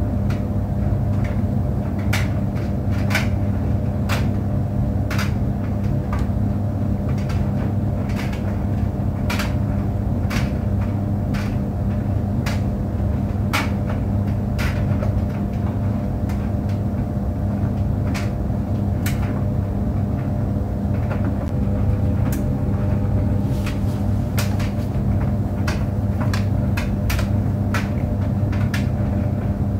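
Clothes dryer running with a steady low hum, with irregular clicks and light knocks every second or so from the tumbling drum.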